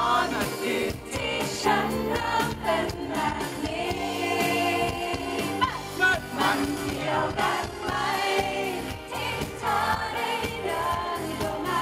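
Live Thai pop duet: a woman and a man singing together into microphones over a full band, through a concert sound system.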